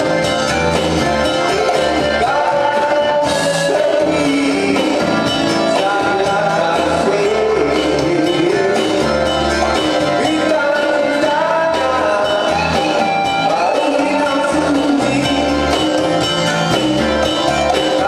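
A man singing into a handheld microphone over backing music with a steady bass line, amplified for a sound check.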